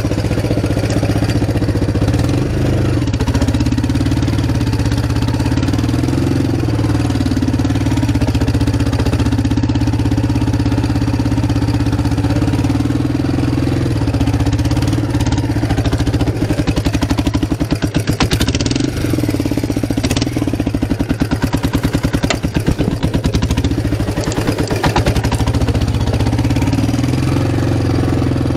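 ATV engine running as the quad is ridden, a steady low drone that turns into an uneven, pulsing chug for several seconds past the middle.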